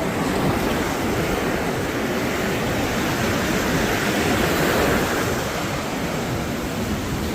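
Ocean surf breaking and washing up a sandy beach, a steady hiss that swells about four to five seconds in as a wave comes in.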